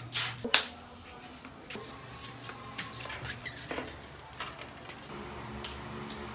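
Scattered clicks and light knocks, the sharpest about half a second in, with more as a metal mesh gate is handled near the middle.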